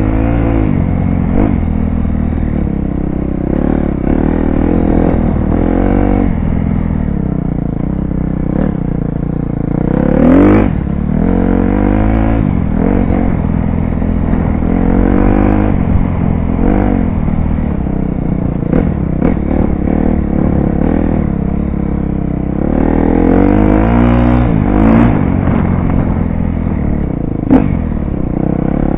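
KTM dirt bike's engine being ridden hard, revving up and down again and again with the throttle, with a few sharp knocks along the way.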